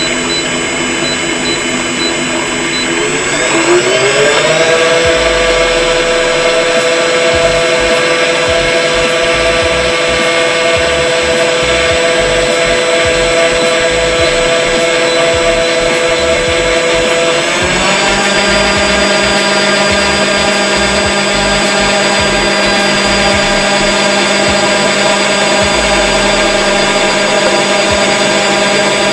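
Electric motor drive of a vacuum emulsifying mixer with an Agi-Homo Mixer, running with a steady whine. About three to four seconds in, its pitch rises as it speeds up and then holds. About seventeen seconds in, the tone changes and a lower steady hum joins in.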